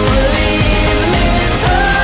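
Background music: a pop song with a singing voice over a steady band accompaniment.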